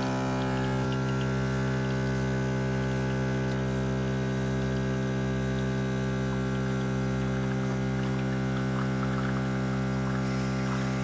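Compact 20-bar espresso machine's vibratory pump running with a loud, steady buzz while it pushes water through, with faint ticks over it in the later seconds.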